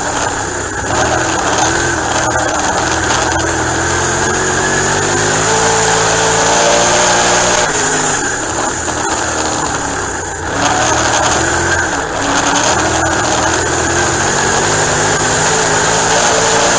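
Dirt-track race car engine running hard at racing speed, heard from inside the cockpit. Its pitch climbs as it accelerates, dips briefly twice, about ten and twelve seconds in, as the throttle is lifted, then holds high again.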